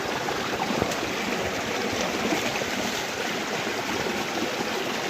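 Steady rush of water flowing in a stream.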